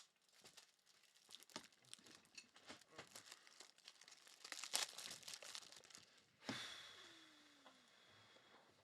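Faint crinkling and rustling of packaging being handled, with many small clicks. About six and a half seconds in, a sudden longer tearing-like noise starts and fades away over about two seconds.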